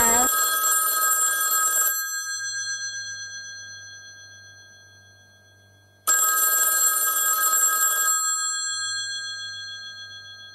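Rotary-dial telephone's bell ringing twice, each ring lasting about two seconds, with the bell tones fading away slowly after each ring.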